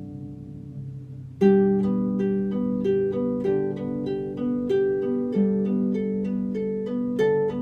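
Harp music: sustained notes fade away, then about a second and a half in a new phrase starts with a run of plucked notes over held low notes.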